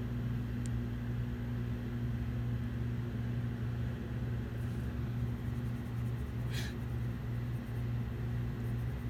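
Steady low electrical or fan-like hum, with one brief soft hiss about six and a half seconds in.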